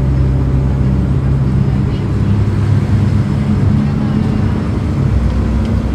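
Volvo B9Salf bus's six-cylinder diesel engine running steadily, its note shifting slightly in the middle.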